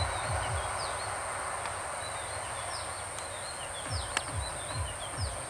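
Small birds chirping again and again over the steady low rumble of a distant train moving away, with a thin high-pitched drone and one sharp click about four seconds in.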